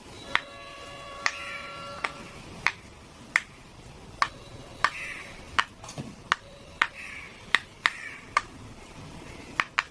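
Silicone pop-it fidget toy bubbles being pressed one at a time, each giving a sharp little pop, about fifteen pops at an uneven pace of roughly one or two a second.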